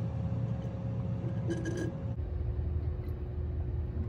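Steady low mechanical rumble, with a steady hum that steps down in pitch about two seconds in, and a brief higher sound about a second and a half in.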